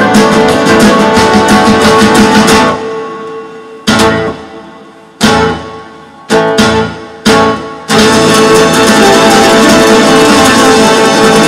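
Acoustic guitar strummed fast and steadily. Between about three and eight seconds in, it breaks into single chords, each struck hard and left to ring out, then the fast strumming starts again.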